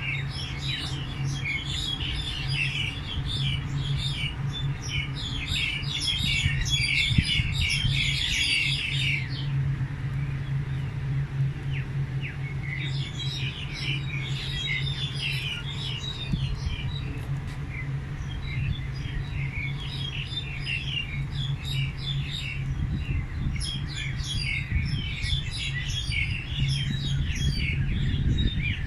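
Several small birds chirping and twittering in quick overlapping bouts, with a lull about ten seconds in, over a steady low hum.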